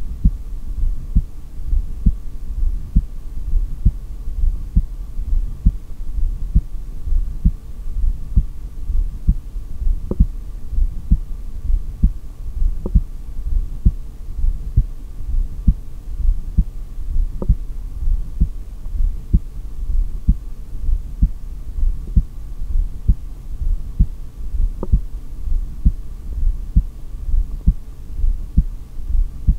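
Heartbeat picked up through a stethoscope during a breath-hold on exhaled lungs: a steady, regular train of low thumps, with a faint steady hum underneath.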